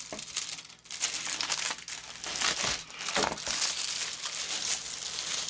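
Plastic packaging crinkling and rustling as it is handled, in an uneven run of crackles.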